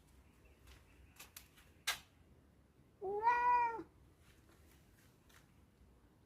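A domestic cat meows once, a single drawn-out call of just under a second about three seconds in. A few sharp clicks come before it, the loudest about two seconds in.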